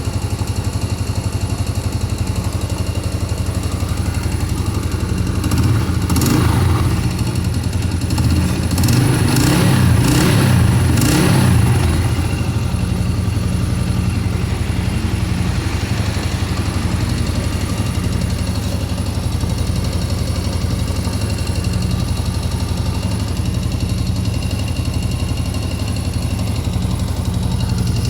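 Yamaha Crypton's single-cylinder four-stroke engine running at idle. It gets louder and busier for a spell about six seconds in and again from about eight to twelve seconds in. This is an underbone motorcycle showing an odd noise that it only makes at times.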